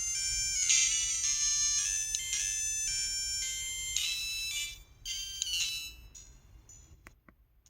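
LG-LB2900 mobile phone ringtone playing a high, tinny electronic melody of short, steady notes, which fades out about five to six seconds in and then leaves near quiet.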